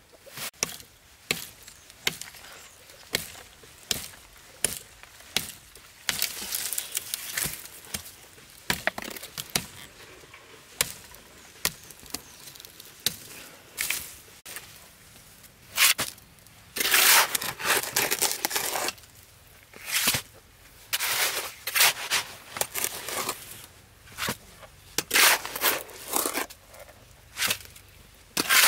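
Irregular sharp knocks and taps, about one a second at first, mixed with several longer rough scraping noises, the loudest stretches in the second half.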